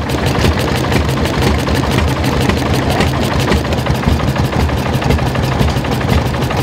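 Old Deutz single-cylinder stationary engine running steadily at a slow, even beat of firing strokes.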